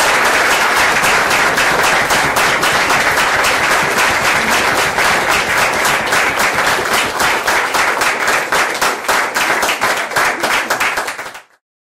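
Audience applauding, a dense continuous clapping that thins into more separate claps near the end before cutting off suddenly.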